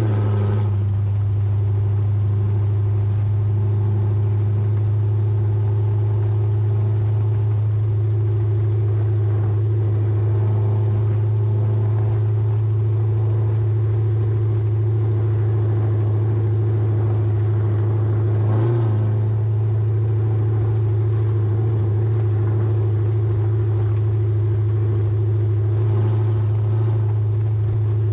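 A car cruising at about 45–50 mph, heard from beneath the body: a steady low drone from the drivetrain and exhaust with tyre and road noise, holding an even pitch, with a brief small bump about two-thirds of the way through.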